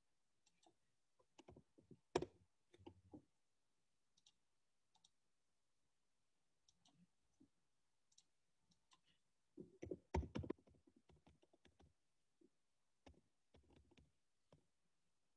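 Faint, scattered computer keyboard and mouse clicks in small irregular clusters, the loudest about two seconds in and around ten seconds in.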